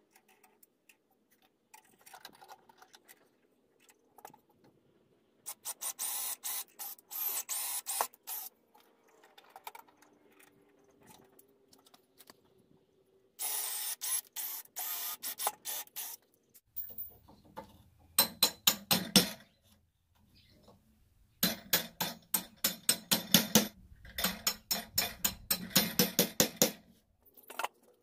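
Cordless drill running in short bursts, drilling and driving screws into pine boards. The later, louder bursts come with a rapid, even clicking.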